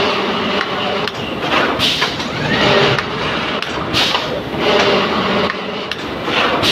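Automatic flatbed screen-printing machine running, its squeegee carriage sweeping across the screen. The steady mechanical noise swells in a regular cycle about every two seconds.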